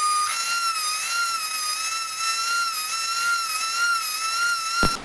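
Handheld rotary tool running at high speed, a small grinding bit beveling one tooth of a Dana 30 ring gear so the differential cross pin can clear it. A steady high whine that wavers slightly in pitch, cutting off with a short knock near the end.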